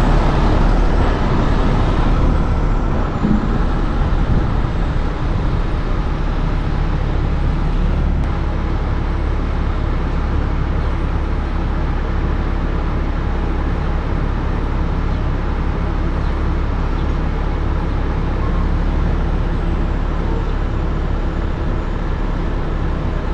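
Diesel engine of a 75-ton rotator heavy wrecker running steadily, a low, even drone.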